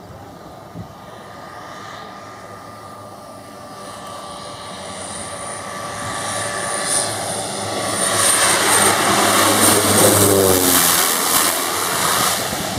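Cessna 208B Grand Caravan's turboprop engine and propeller on landing approach, growing steadily louder as the aircraft comes in low and passes close by. A high turbine whine sits over the propeller sound, and the pitch drops as it goes past about ten seconds in.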